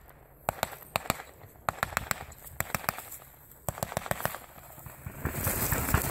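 Scattered pops of small-arms blank fire, some coming in quick runs like short bursts. Near the end a rushing, rustling noise builds and becomes louder than the shots.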